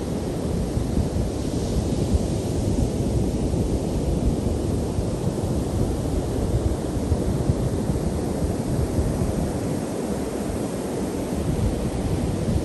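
Ocean surf breaking and washing onto a sandy beach in a steady wash, with wind buffeting the microphone.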